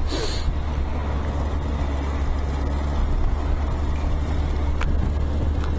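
Yamaha XJ900S Diversion's air-cooled inline-four running steadily under way, with road and wind noise over it. Two short clicks about a second apart near the end.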